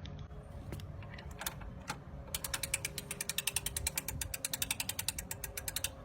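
Mechanical ratcheting on a 1968 Toro Whirlwind lawn mower: a few scattered clicks, then from about two seconds in a fast, even run of about ten clicks a second that stops just before the end. The engine is not running.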